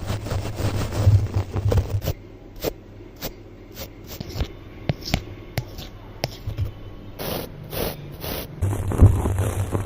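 Close-miked ASMR scraping: quick, irregular brushing and scratching strokes over a steady low hum, denser and louder near the end.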